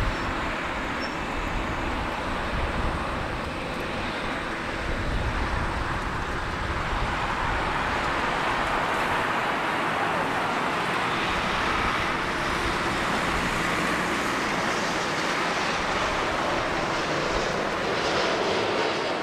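Boeing 787 airliner on final approach, its jet engines growing steadily louder from about six seconds in as it comes close overhead. Wind buffets the microphone in the first few seconds.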